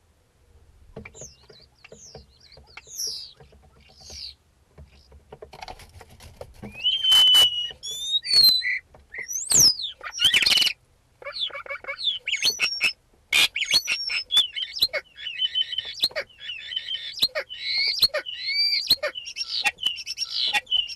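Common starling singing its rambling, mimicking song: a run of varied whistles, rising and falling glides, rattles and sharp clicks. It starts faint and gets much louder about seven seconds in.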